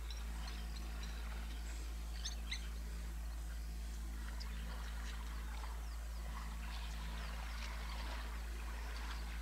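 Small birds chirping and calling in short, scattered notes over a steady low hum.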